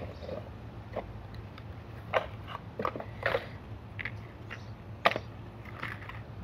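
Packaged fishing tackle being handled: irregular crinkles, clicks and rustles of plastic and cardboard packaging, sharpest about two seconds in and again about five seconds in.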